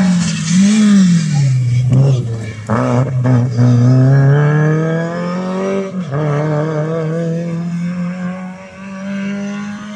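Rally car engine under hard acceleration, its pitch dipping and rising as it shifts. There are a few sharp cracks about three seconds in, then a long climbing rev, a gear change about six seconds in and another climb.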